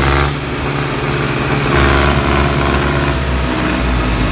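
Two diesel tractors, a New Holland 3630 and a John Deere 5050, running hard under load as they pull against each other on a tow chain in a tug-of-war. The engine sound dips just after the start and swells louder again about two seconds in.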